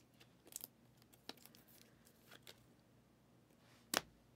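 Faint rustling and light clicks of trading cards being handled and slid between fingers, with one sharp click near the end.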